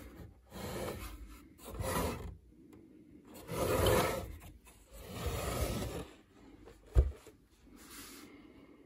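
Rubbing and scraping as a hand grips and shifts the plastic casing of a PowerWalker UPS on a desk, in about five swells of a second or less each. A single short, sharp low knock about seven seconds in.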